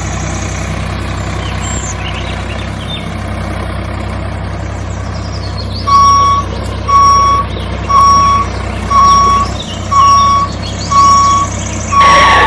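Vehicle engine running steadily, joined about halfway through by a reversing beeper sounding about once a second, seven beeps in all: the tractor is backing up.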